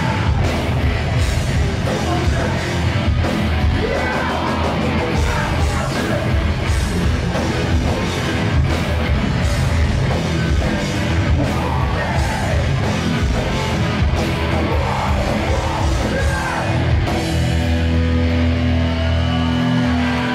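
Hardcore punk band playing live: distorted electric guitars, bass and drums with a shouted lead vocal. Near the end the cymbal wash drops away and held guitar chords ring out.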